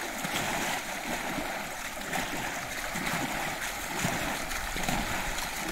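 Shallow floodwater splashing and sloshing steadily as several people wade through it, sweeping their hands through the water.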